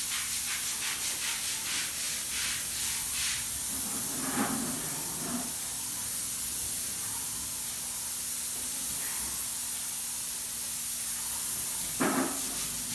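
Paint spray gun hissing steadily as it sprays, the hiss pulsing about three times a second for the first three seconds, over a faint low hum. Two brief thumps, one about four seconds in and a louder one near the end.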